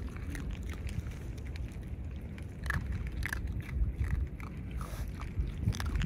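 Raccoon dog chewing dry kibble, with irregular crisp crunches as it bites the pellets.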